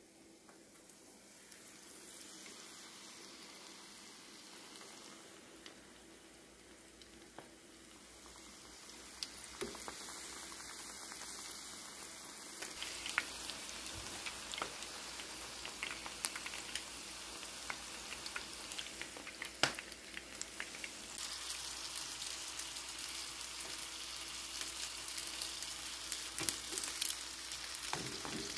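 Battered chicken skin deep-frying in a pan of hot oil: a steady sizzle with scattered sharp pops and crackles, growing louder about nine seconds in and again around twenty-one seconds.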